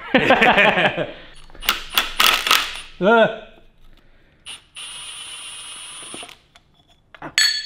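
Cordless impact driver running steadily with a thin high whine for about a second and a half as it spins out a power steering pump bolt on an LS1 V8. Metallic clinks of tools and parts come a couple of seconds before it, and a sharp metallic clink comes near the end.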